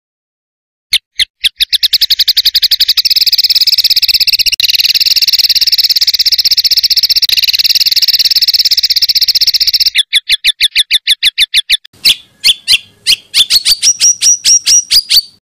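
Songbird's rapid-fire 'tembakan' song: a long, very fast run of sharp, evenly repeated high notes, then a slower series of separate strokes, a short break, and a string of notes rising in pitch near the end.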